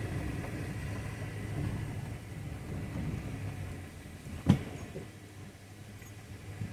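Low, steady rumble of a Chevrolet Silverado pickup rolling slowly along a gravel dirt road, heard from inside the cab and growing gradually quieter. A single sharp knock comes about four and a half seconds in.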